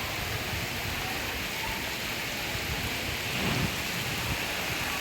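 Heavy monsoon rain falling steadily, an even hiss of rain on surfaces.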